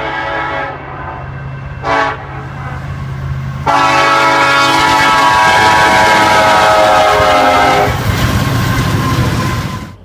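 Nathan K5LLA five-chime locomotive air horn sounding a crossing signal: a blast ending just under a second in, a short blast about two seconds in, then a long, loud blast from about four seconds in that tails off and cuts off suddenly near the end. A steady low hum runs underneath.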